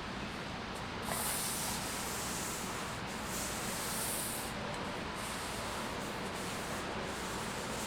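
Hand rubbing strokes on a wet wooden stave drum shell during wet sanding: several separate rubbing passes of about a second each, over a steady background hiss.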